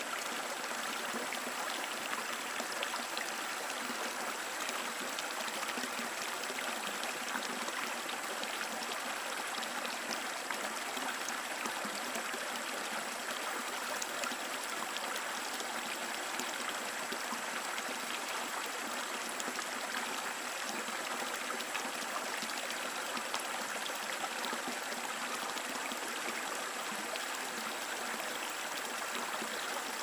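River water flowing: a steady, unbroken rush of running water, mostly in its higher splashing tones with almost no deep rumble.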